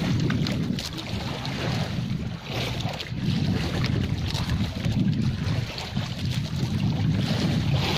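Wind buffeting the microphone on open sea, an uneven rumble that swells and dips every second or two, with sea water washing against a small boat's hull.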